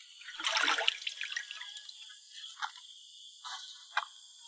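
Water sloshing and splashing in a large clay basin as fish are washed by hand. The splashing is loudest about half a second in, followed by a few small drips and splashes.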